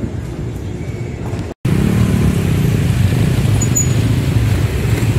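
Street traffic running past as a steady low rumble; it cuts out for an instant about a second and a half in, then comes back louder.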